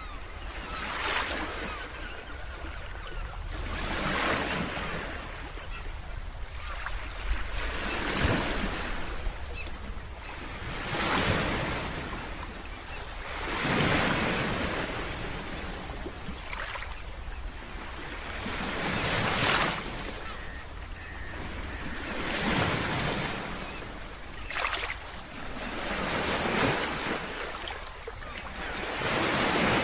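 Sea waves breaking and washing on the shore. They swell and fall back in a slow rhythm, one surge about every three seconds, over a steady low rumble.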